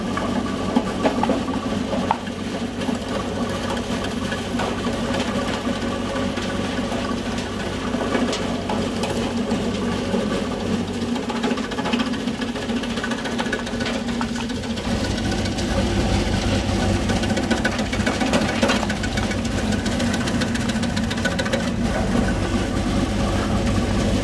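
Stainless-steel vegetable slicing machine running and slicing garlic: a steady machine hum that gets louder and deeper about fifteen seconds in.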